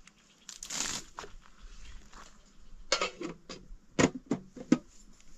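A short rustle about half a second in, then a quick run of sharp knocks and clicks near the middle and end.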